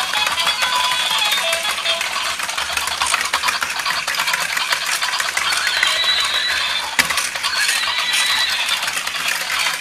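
Battery-powered plastic toy horses walking: their gear mechanisms rattle with fast, continuous clicking, over thin electronic tones from their built-in sound chips. A sharp knock comes about seven seconds in.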